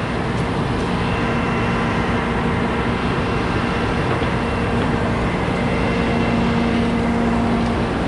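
City street traffic noise, steady and loud, with a constant engine hum from a nearby vehicle that stops near the end.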